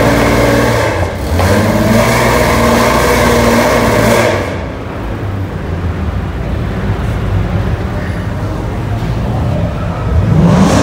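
Car engine revving loudly for about four seconds, then dropping to a lower, steady running. Near the end another engine revs up again with a rising pitch, in the echo of a parking garage.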